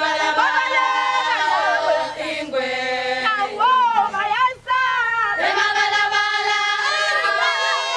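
A group of Zulu women singing together unaccompanied, many voices at once, with a brief break about four and a half seconds in.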